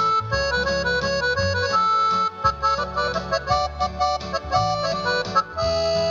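Arranger keyboard playing an instrumental break with an accordion voice carrying the melody over a pulsing bass and backing rhythm.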